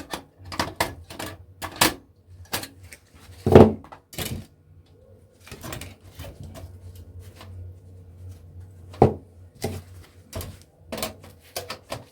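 Irregular clicks, taps and knocks of hand tools and small metal parts on a projector's casing as its small washer bolts are unscrewed, with two louder knocks about three and a half and nine seconds in.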